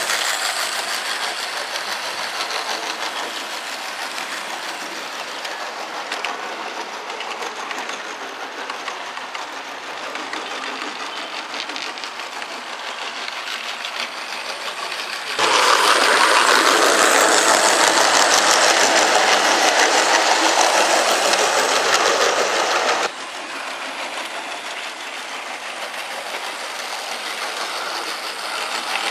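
Model train running along garden railway track: a continuous rapid clicking and rattling of wheels over the rails. It gets much louder suddenly about halfway through and drops back just as suddenly some seven seconds later.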